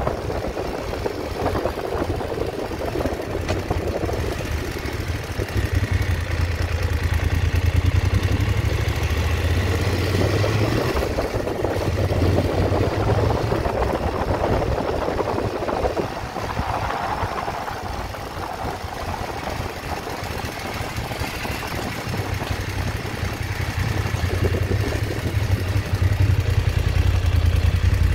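Motorcycle engine running under way, its low note swelling and easing as the rider opens and closes the throttle, quietest about two-thirds of the way through and building again near the end.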